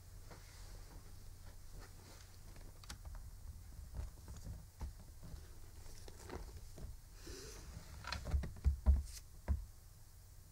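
Scattered soft clicks and knocks of hands handling things at a desk, over a low steady hum, with a cluster of louder knocks about eight to nine and a half seconds in.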